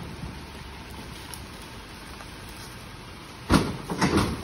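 Steady rain falling, with two sudden heavy thuds and rustles about three and a half and four seconds in.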